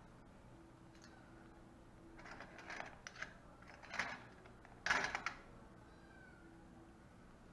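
Stainless steel surgical instruments clinking and rattling in a metal kidney dish as a gloved hand picks through them, in a few short bursts around the middle, the last one the loudest.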